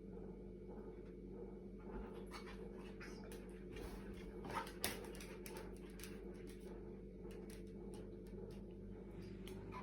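Refrigerator compressor humming steadily, with dogs panting and moving about close by. Scattered small clicks and scrapes come through, with a sharper click about five seconds in.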